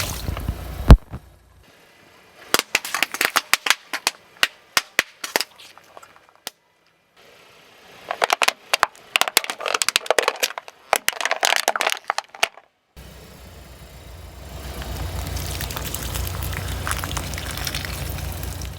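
Objects crunching and cracking under a car's tyre: one loud crack about a second in, then two spells of rapid crackling and snapping. From about two-thirds of the way through, the car's engine runs with a steady low rumble.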